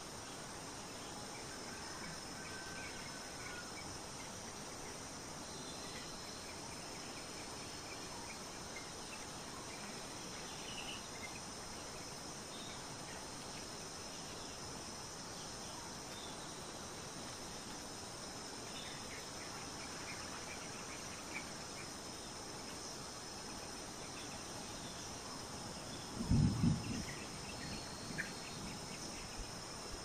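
Forest ambience of a steady insect chorus, a continuous high-pitched drone, with a few faint scattered chirps. About 26 seconds in, a brief low thump stands out as the loudest sound.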